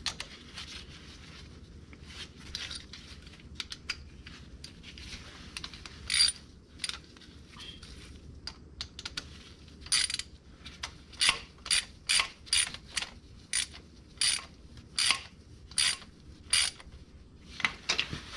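Socket ratchet clicking as a terminal nut on a new starter's solenoid is run down, with scattered clicks and handling rustle at first. About ten seconds in, the clicks settle into steady strokes, roughly two a second.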